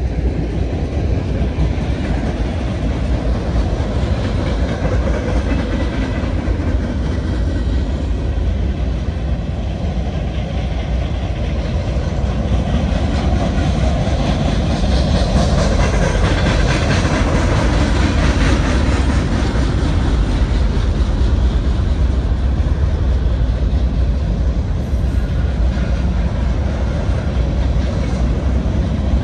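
Union Pacific manifest freight train's cars rolling past: boxcars, hoppers and centerbeam lumber flatcars, with a steady rumble of steel wheels on the rails, a little louder from about halfway through.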